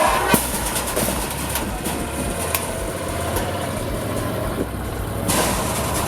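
Can-Am Defender HD10 side-by-side's 976cc V-twin engine running steadily as the vehicle is driven, with a few sharp knocks and rattles.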